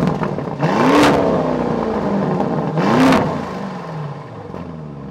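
Lamborghini Urus's twin-turbo V8, just fired up, coming down from its start-up flare and then blipped twice, about a second in and again about three seconds in, each rev rising and falling. After that it settles to a steady idle.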